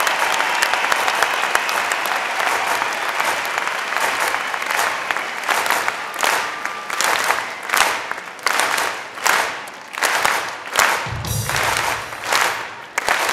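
Large concert crowd applauding and cheering. After about five seconds it turns into rhythmic clapping in unison, about one and a half claps a second. A brief low thump comes about eleven seconds in.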